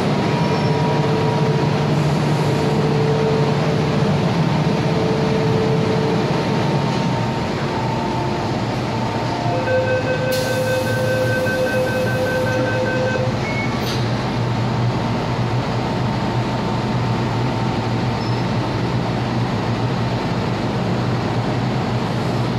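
MTR M-Train electric multiple unit running, a steady rumble with faint whining tones. A higher-pitched whine rises over it for about three seconds midway.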